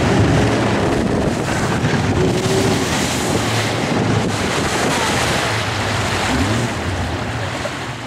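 Motorboat running on a fast river: engine hum under the rush of water against the hull, with wind buffeting the microphone.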